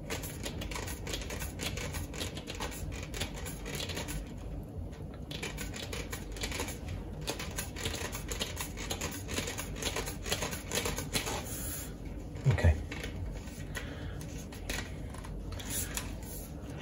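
Rapid, irregular clicking and rubbing of DX10 insulated wire being wound by hand onto a plastic pipe coil former, the turns seated between ridges of hot glue as the pipe is turned.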